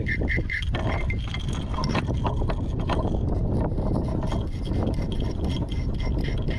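Steel circle hook drawn again and again along a sharpening stone toward its point: a run of short scrapes over a steady low rumble.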